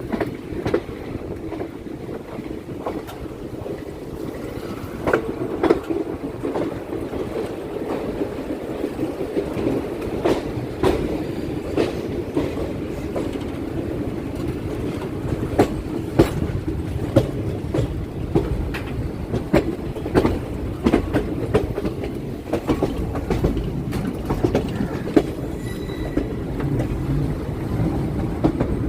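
Chennai MRTS electric suburban train running along the track: a steady low rumble with irregular clacks of the wheels over rail joints.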